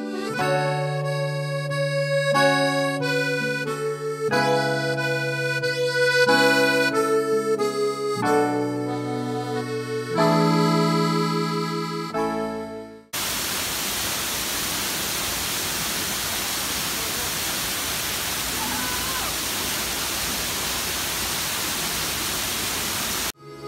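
Background music with held chords for about the first half, then an abrupt cut to the steady rushing of a waterfall pouring down rockwork, which runs on evenly until the music returns right at the end.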